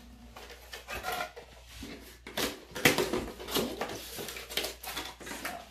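Cardboard packaging rustling and scraping, with scattered knocks that are loudest about three seconds in, as an enamelled cast-iron Dutch oven lid in its cardboard insert is lifted out of its box.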